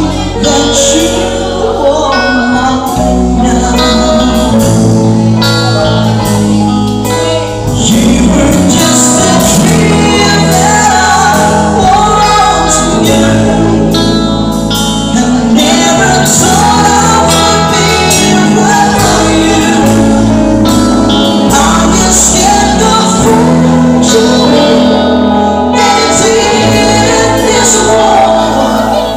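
Live band playing a love song, a man and a woman singing into microphones over a drum kit and electric guitar.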